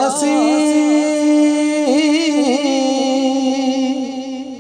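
Naat singing: a voice holds one long sung note at the end of a line, with ornamented turns in its middle, fading toward the end.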